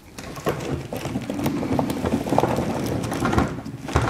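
Quick irregular knocks, clicks and rubbing of plastic parts as an irrigation valve manifold with its solenoid valves is handled and turned on a table, starting about half a second in.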